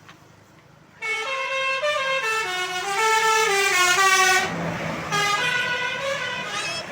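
Telolet basuri musical bus horn playing a quick melody of stepped tones, starting about a second in. It breaks off briefly about two-thirds through, then plays a second, shorter phrase.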